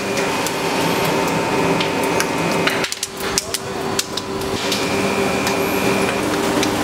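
Rubber-processing factory machinery running with a steady hum of several held tones, with scattered sharp clicks and knocks throughout. The level dips briefly about three seconds in.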